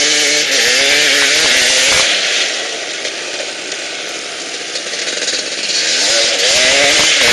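Two-stroke 250cc quad engine revving up and down as it is ridden hard on dirt. The pitch swings with the throttle. It is loud for the first two seconds, eases off through the middle, and climbs again near the end.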